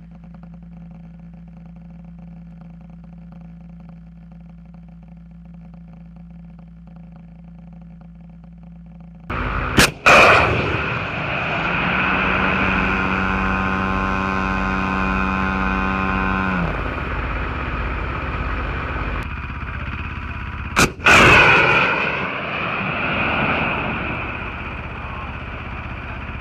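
Missile launches: a steady low hum, then two sharp launch blasts about eleven seconds apart. Each blast is followed by a long rushing roar that slowly fades.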